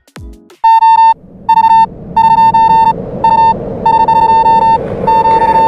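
A string of electronic beeps on one high pitch, some short and some long, over a growing hiss and rumble, starting about half a second in after the last falling bass notes of electronic music.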